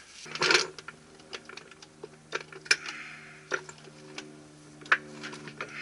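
Scattered light clicks and taps of hand tools on metal, at irregular intervals, while working at the steering joints. A steady low hum comes in about a quarter second in and runs underneath.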